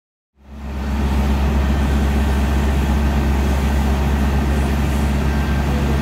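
Fire apparatus diesel engine running steadily, a deep, even hum with a steady hiss over it, cutting in suddenly about half a second in.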